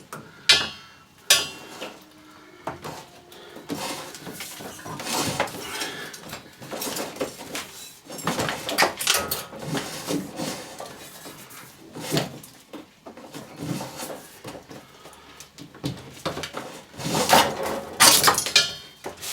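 An old electrical cable being pulled out of its run by hand: irregular scraping, rustling and clattering as it drags past fittings, loudest near the end.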